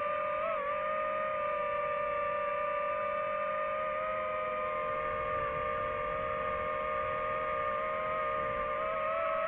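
DJI FPV drone's motors and propellers whining steadily in flight. The pitch wavers briefly about half a second in and rises a little near the end as the throttle changes.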